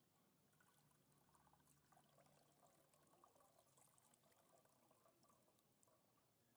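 Faint trickle and splash of water poured through a fine-mesh strainer of pounded crab into a bowl below, rinsing the crab through to make broth.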